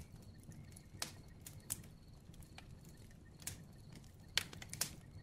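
Faint crackling of a campfire: scattered sharp pops and snaps, irregularly spaced, over a low steady rumble.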